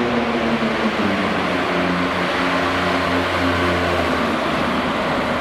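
Open-class diesel garden tractor engine pulling a sled under full load, its pitch sagging in the first second as the engine lugs down, then holding lower and steady.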